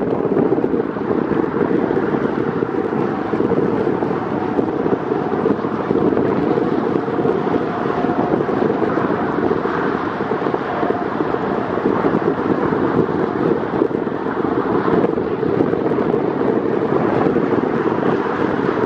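Wind buffeting the microphone: a steady, loud rumble.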